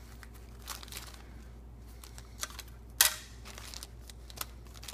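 Small resealable plastic parts bags rustling and crinkling as they are handled, with scattered light clicks and one sharper crinkle about three seconds in.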